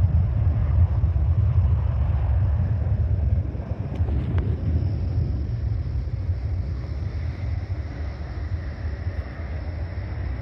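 Low rumble of jet aircraft engines across the airfield, easing off and fading about a third of the way in.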